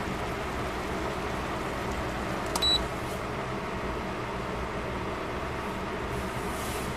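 Pot of beef rolls and vegetables cooking as its sauce boils down, a steady hiss of bubbling and sizzling, with one short, high electronic beep about two and a half seconds in.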